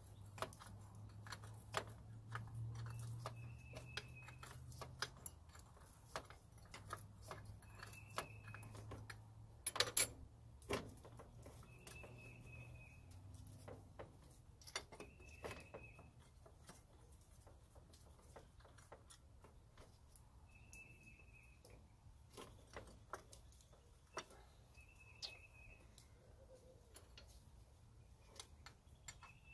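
Faint, irregular metal clinks and taps of a wrench working the bolts of a power steering pump bracket, with a louder double clink about a third of the way in. A bird chirps briefly every few seconds in the background, and a low hum fades out about halfway.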